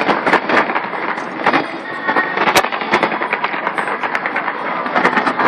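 Fireworks display: rapid, irregular bangs of aerial shells over a continuous crackling din, with one especially sharp bang about halfway through.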